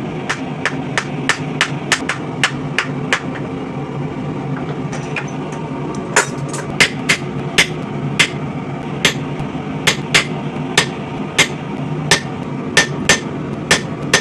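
Hand hammer striking hot coil-spring steel on an anvil, forging a knife blade's bevel, in a steady rhythm of about two to three blows a second with a pause of a few seconds partway through. A steady low hum runs underneath.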